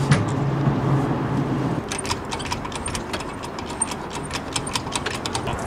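Small crane winch motor running steadily for about two seconds, then stopping, followed by a run of light metallic clinks from the crane's chain slings as they take up the weight of the inflatable boat.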